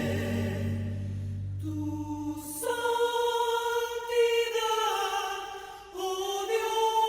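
Choral music: voices hold long notes, moving to new notes every second or two, with a low held note that drops out about two and a half seconds in.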